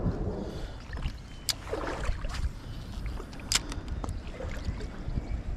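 River water lapping and moving, with a low rumble of wind on the microphone and a few sharp clicks about a second and a half and three and a half seconds in.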